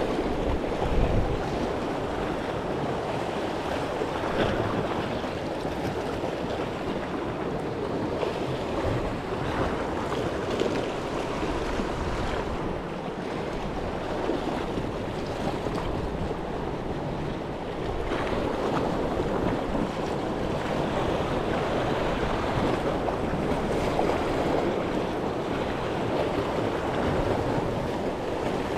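Sea waves washing against a rocky shore in a steady rush, with wind buffeting the microphone.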